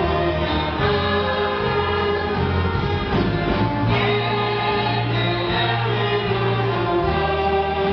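Church orchestra playing a hymn in full, sustained chords that change every second or two, with no break.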